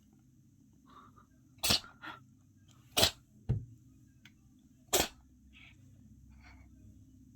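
A cat sneezing three times in quick succession, sharp short sneezes about a second or two apart, set off by dust in its nose. A short low thump comes between the second and third sneeze.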